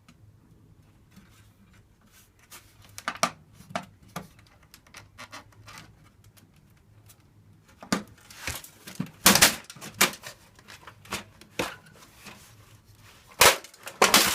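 Clicks, knocks and clattering of metal computer parts being worked at by hand to free a floppy disk drive that is stuck in its bay. Scattered light clicks at first, then bunches of louder clanks about eight to ten seconds in and again near the end.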